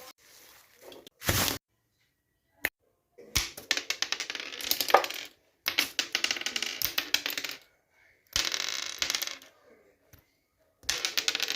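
Rapid clicking and rattling of a toy gun's mechanism being handled, in four bursts of a second or two each with silent gaps between, after a short burst of noise and a single click.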